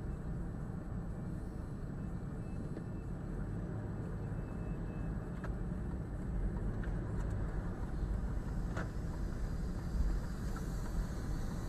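Steady low road and engine rumble of a moving car, heard from inside the cabin, with a few faint ticks.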